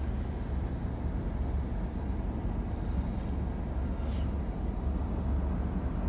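Steady low rumble of a car running, with one brief click about four seconds in.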